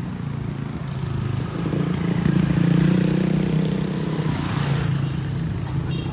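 A motor vehicle's engine running, getting louder over the first three seconds and then holding steady, with a short hiss about four and a half seconds in.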